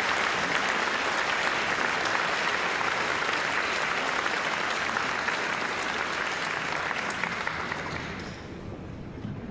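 Audience applauding, a dense clapping that dies away about eight seconds in.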